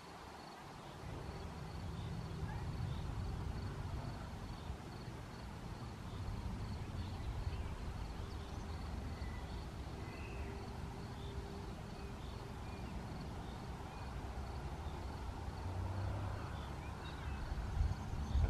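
A cricket chirping steadily, a faint high chirp repeated at even spacing, over a low, fluctuating rumble, with a few scattered bird chirps.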